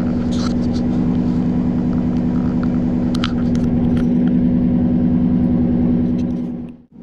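Ford F-150's 5.0 Coyote V8 idling steadily through a muffler-delete "straight pipe" setup that keeps the catalytic converters. The sound cuts off suddenly just before the end.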